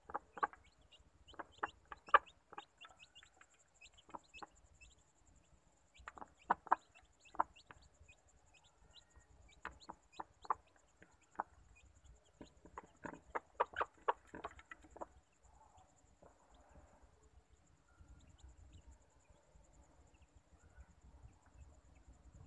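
Domestic hen giving runs of quick short clucks, the food call that draws her chicks to eat, with the chicks peeping softly in between. The clucks come in four bursts, each lasting a second or two.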